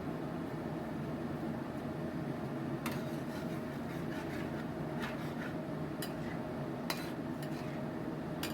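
A steady hum in the kitchen, with a few short, sharp clinks of a metal utensil against cookware scattered through it.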